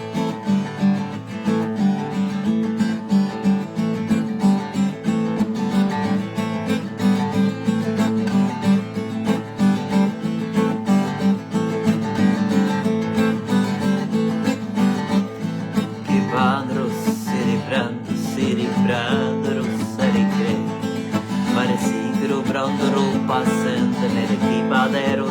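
Music: an acoustic guitar strummed steadily, with a wavering higher melody joining about two-thirds of the way in.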